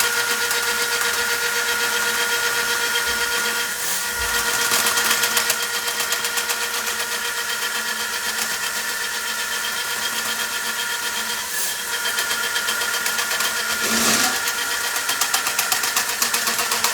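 A motor running steadily with a constant hum and a fast, even rattle.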